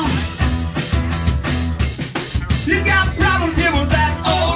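Live rock band playing: drum kit keeping a steady beat under electric bass and electric guitar. A man's voice sings over it in the second half.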